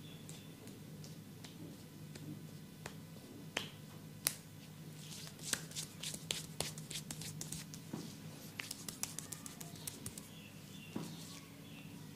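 Massaging hands working a head: a series of sharp clicks and light slaps, scattered at first, then coming quickly, about five a second, for several seconds in the middle, over a steady low hum.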